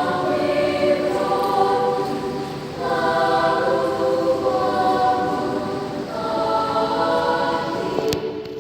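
Children's mixed choir singing in several parts, holding sustained chords that move to a new phrase about every three seconds.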